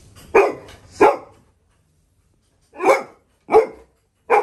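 Labrador retriever barking loudly: five sharp barks, a pair in the first second or so, then three more spaced well apart near the end.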